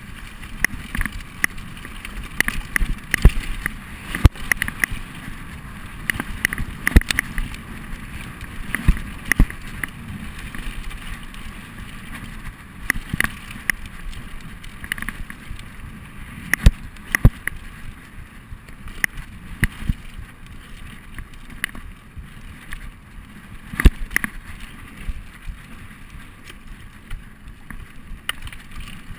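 Mountain bike riding fast down a dirt forest trail: continuous tyre-on-dirt noise with frequent sharp knocks and rattles from the bike as it hits bumps.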